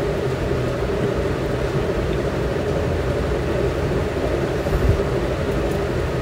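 Peanuts, curry leaves and whole spices frying in a little hot oil in an aluminium kadhai over a gas burner: a steady low rumble with a faint sizzle, and a brief bump about five seconds in.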